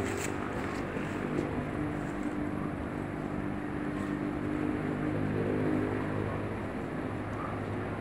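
Steady drone of a distant engine, its pitch wavering slightly, with a few faint clicks in the first second and a half.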